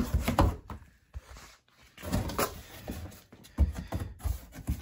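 Large cardboard box being opened by hand: flaps pulled back and the box handled, with a few knocks and scrapes, a near-silent pause about a second in, then more knocks and rustling.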